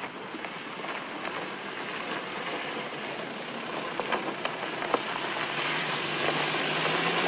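Four-wheel-drive minivan driving along a gravel track: a steady rush of engine and tyre noise, with a few sharp ticks about four to five seconds in.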